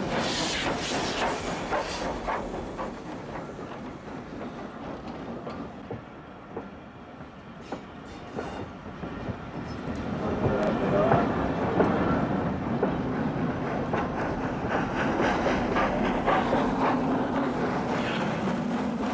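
Steam-hauled train of HGS 2-8-0 locomotives and coaches rolling past: wheels clicking over the rail joints and the locomotives running. The sound dips about a third of the way in as the coaches go by, then grows louder from about halfway as the steam locomotive at the rear of the train comes past.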